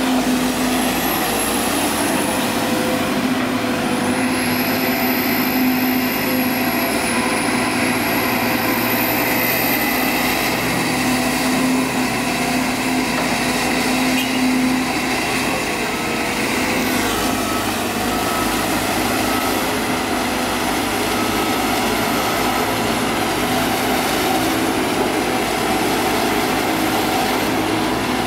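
Diesel engines of an excavator and dump trucks running steadily, with a faint high whine rising and falling above them and a shift in the engine tones a little past the middle.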